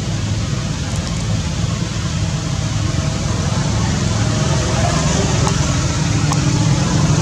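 Steady hiss of falling rain with a low rumble underneath, growing slightly louder toward the end.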